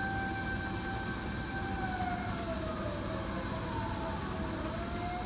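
Siren of a Japanese fire-department rescue truck wailing: a held tone that slowly sinks in pitch around three to four seconds in and climbs back up, over the low hum of traffic.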